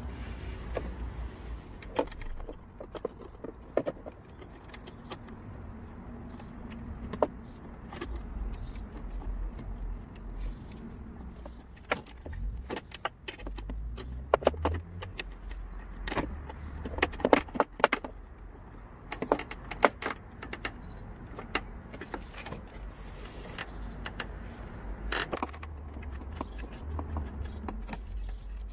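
Scattered sharp clicks, clinks and knocks of a metal hand tool and plastic fittings being worked behind a car's front bumper, coming thickest around the middle. A steady low rumble runs underneath.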